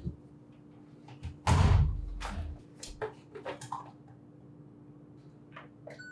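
The door of an LG WM3998HBA washer-dryer combo swung shut about a second and a half in, a heavy thud with a low rumble. It is followed by several light plastic clicks from the detergent dispenser drawer being opened and handled.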